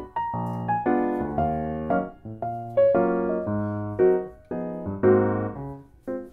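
Background piano music: a melody of struck notes and chords, each dying away before the next.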